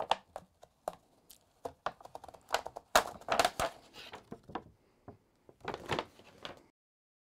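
Damaged anti-reflective plastic film being peeled off the glass face of a CRT and handled: a run of irregular crackles and crinkles.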